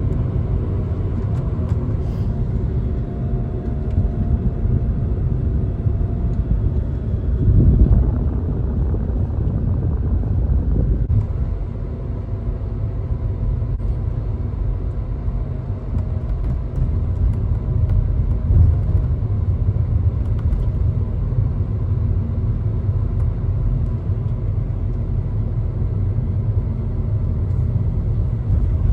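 Car driving on the road: a steady low rumble of road and engine noise, with a brief louder swell about eight seconds in.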